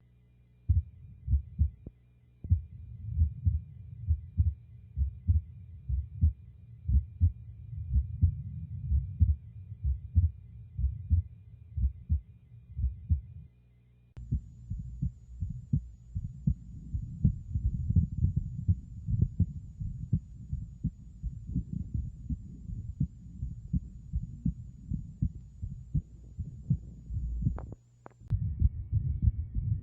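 Abnormal heart sounds from congenital heart disease: repeated low-pitched heartbeats. The recording changes abruptly about 14 seconds in, and again after a short gap near the end.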